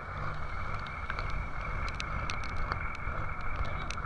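A fishing boat's engine running steadily, under wind and rough-sea noise, with scattered small sharp clicks throughout.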